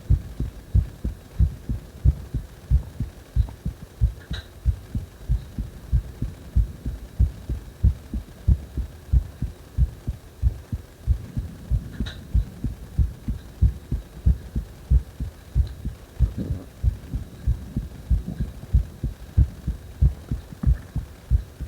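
Heartbeat heard close up: a steady, even rhythm of low thumps, with breathing sounds strong in the background.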